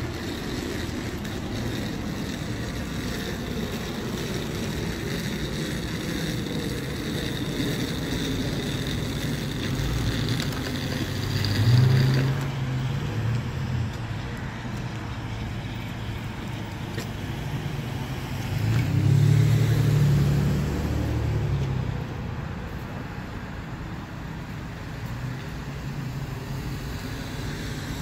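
Motor vehicles running in a parking lot: a steady low engine rumble that swells twice as vehicles drive close by, briefly a little under halfway through and for a couple of seconds about two-thirds of the way through.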